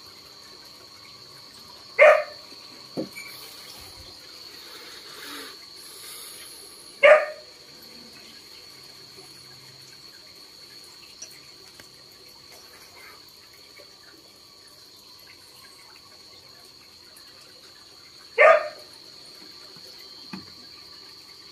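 Three short, sharp animal barks, about 2, 7 and 18 seconds in, over a steady high-pitched insect drone.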